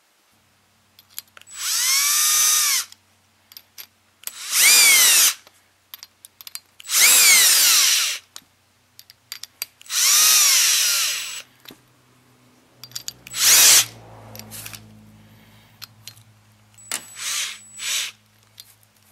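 Cordless drill with a socket running the nuts down on wire rope cable clamps, cinching them onto a looped exercise-machine cable. Four bursts of a second or so each, the motor whine rising as it spins up and falling as it stops, then a shorter burst and a few brief blips near the end.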